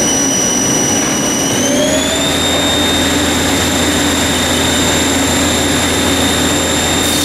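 2011 Haas ST-10T CNC lathe spindle spinning its empty chuck with a steady high whine. About two seconds in, the whine climbs to a higher pitch and a low hum joins it as the spindle steps up from 4,000 RPM to the next speed in a run-up test, then it holds steady.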